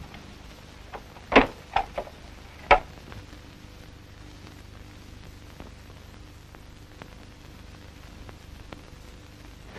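Steady hiss of an old optical film soundtrack, with a handful of sharp knocks between about one and three seconds in, the loudest two about a second and a half apart.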